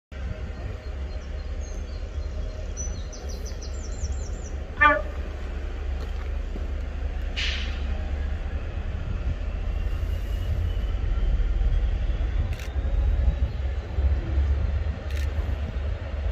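A Class 69 diesel-electric locomotive approaches through a tunnel, a low rumble building steadily louder. About five seconds in it gives one short toot of its horn. Small birds chirp early on.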